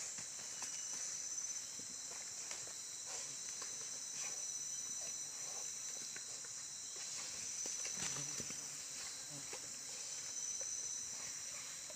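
Steady, high-pitched drone of tropical forest insects, with faint scattered rustles and snaps of movement in the leaf litter.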